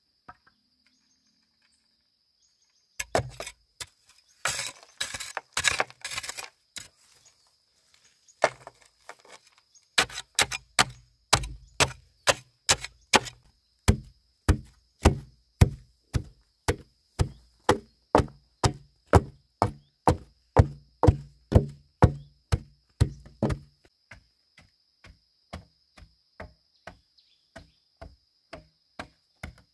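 Repeated sharp strikes of a hand tool on wood: a quick flurry a few seconds in, then a steady chopping rhythm of about two blows a second that grows softer near the end. A steady high insect buzz runs behind.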